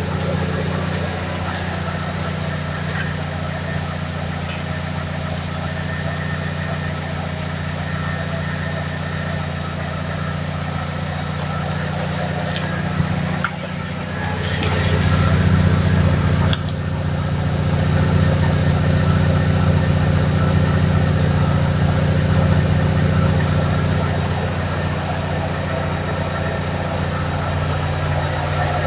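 Freshly rebuilt Alfa Romeo 156 1.8 Twin Spark four-cylinder engine idling with a steady hum. About halfway through it dips briefly, then grows louder for a couple of seconds before dropping back sharply.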